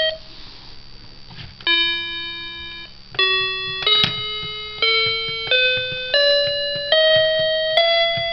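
Electronic toy animal piano with its keys pressed one at a time from low to high, sounding a rising scale of about seven separate electronic notes after a short pause.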